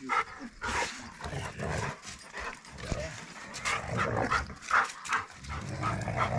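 Dogs barking and growling in short irregular bursts during excited rough play between a Rottweiler and a German Shepherd.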